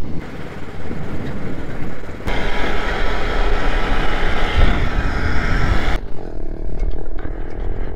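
ATV engine running as it drives along hauling a loaded trailer, with heavy wind noise on the microphone through the middle stretch. The sound changes abruptly twice, about two seconds in and again about six seconds in.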